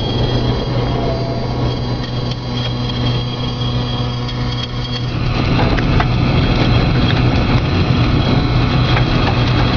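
Wind and rain from a close tornado rushing against a car, over a steady low hum. The rush grows louder about five seconds in, with a few faint crackles.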